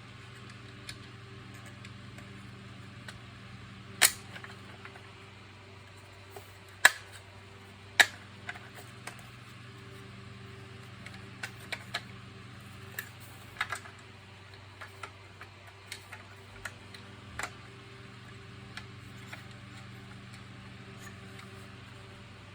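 Sharp clicks and knocks of hard parts being handled during vacuum cleaner repair work, most likely the plastic housing and tools. Three loud clicks come about four, seven and eight seconds in, then a scattering of lighter ones, over a steady low hum.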